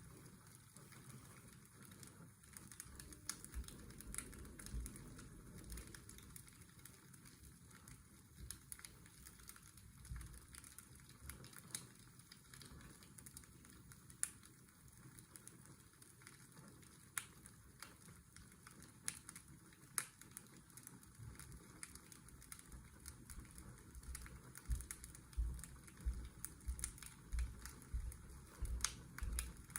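Fireplace crackling, scattered sharp pops over a steady hiss of washing-machine white noise. A run of low thumps comes near the end.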